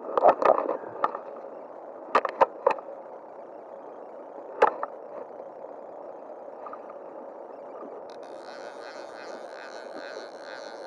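Handling sounds from a fly rod and line: a few sharp clicks about two seconds in and another near five seconds, over the steady rush of a flowing river. About eight seconds in, a steady buzzing hiss joins.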